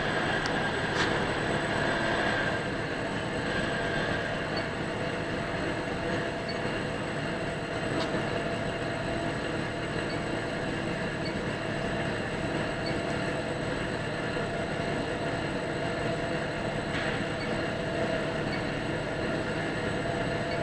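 PU shoe-sole moulding machine and its station conveyor running steadily, with a faint high tick repeating about once a second and an occasional sharper click.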